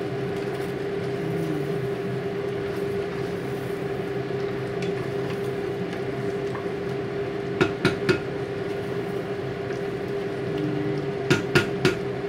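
Wooden spatula stirring beef in an enamel pot and tapping on the pot: three quick sharp knocks about 7.5 seconds in and three more about 11 seconds in, over a steady hum.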